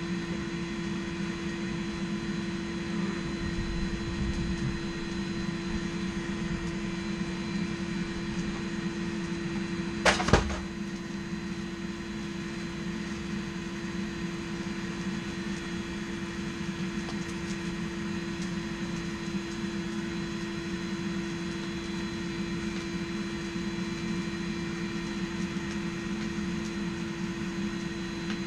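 A small electric motor hums steadily, with two sharp knocks close together about ten seconds in.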